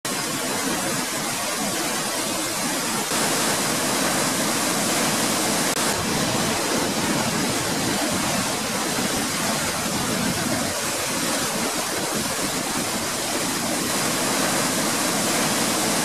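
Pailón del Diablo waterfall heard close up: a steady, unbroken rush of heavy falling water and spray.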